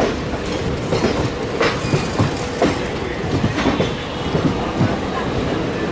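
Passenger train coaches rolling along the track at speed, a steady rumble broken by an uneven clatter of wheel knocks over rail joints and pointwork, several a second.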